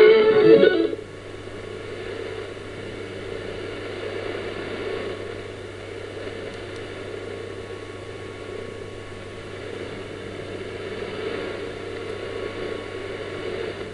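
Shortwave AM reception of All India Radio on 15030 kHz with no programme on the carrier: steady static hiss with a faint hum, the dead air between programmes. The last of the music cuts off about a second in.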